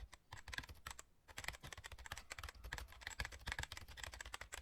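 Faint, rapid, irregular ticking of raindrops striking a helmet-mounted action camera's housing during a rainy motorbike ride, over a faint low rumble.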